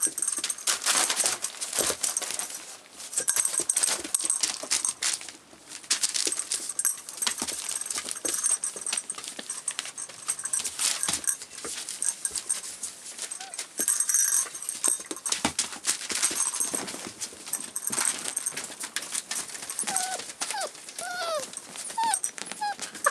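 Seven-week-old rough collie puppies scampering and tussling on newspaper over a wooden floor: constant paper rustling and scrabbling, with a few short high whimpers or yelps near the end.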